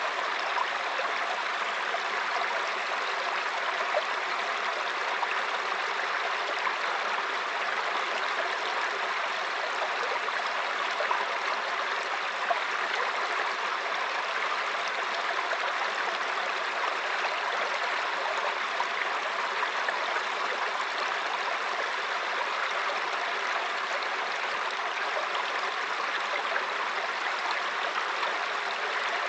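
Mountain brook flowing over rocks: a steady, even babbling and rushing of water.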